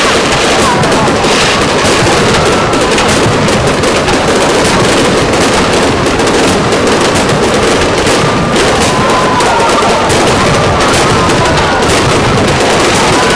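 Aerial firework shells bursting in a loud, rapid, continuous barrage of bangs and crackles.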